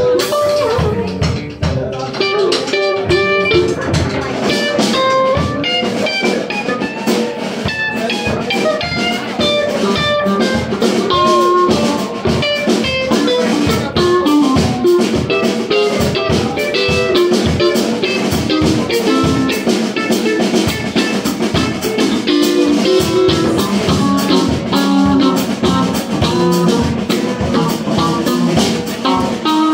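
Live band playing an instrumental passage: electric guitar picking runs of single notes over electric bass and a drum kit.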